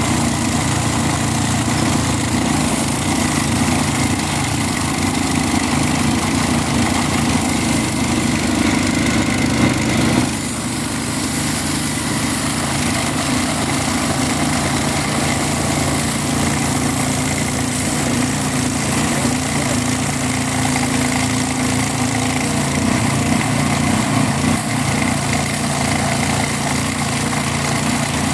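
Petrol-engined abrasive disc rail cutter cutting through a steel rail: the small engine runs steadily under load while the disc grinds through the rail, with a short dip in level about ten seconds in.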